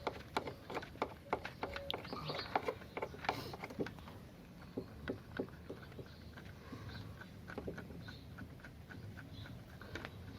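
Irregular light clicks and taps of a plastic phone holder being fitted and tightened onto a motorbike handlebar by hand, thick in the first few seconds and sparser after.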